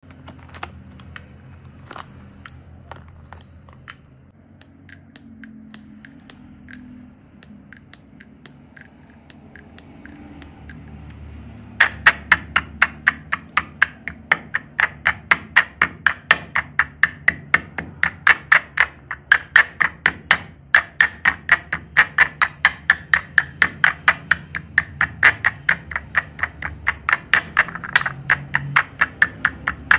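Sticks of dry chalk clicking as they are handled, then from about twelve seconds in a pestle pounding chalk pieces in a white mortar, about three sharp strikes a second, crushing them toward powder.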